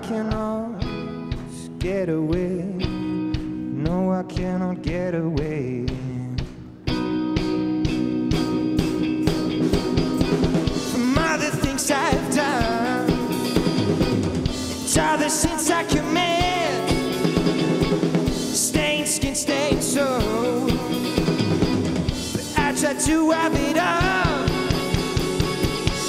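Live garage rock from a guitar-and-drums duo: Squier electric guitar and drum kit, with a man singing long, wavering notes. About seven seconds in the band comes in louder and fuller, with crashing cymbals.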